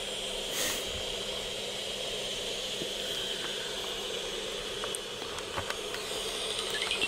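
Bat detector output picking up lesser horseshoe bats: a steady hiss with a constant high tone from their echolocation calls, with scattered faint clicks.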